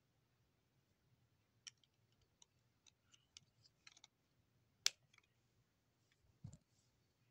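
Faint, scattered clicks of plastic Lego bricks being handled and fitted together, with one sharper click about five seconds in and a dull bump about a second and a half later.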